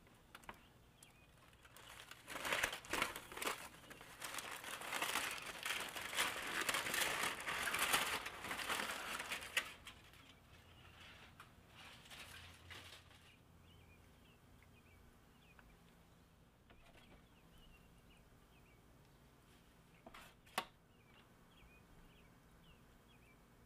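Aluminium foil crinkling loudly as it is pulled off a roasting pan, for about eight seconds, then fading to a fainter rustle. A single sharp click comes near the end.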